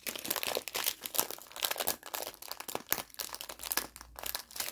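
Thin clear plastic packaging crinkling as it is handled, a quick, irregular run of small crackles.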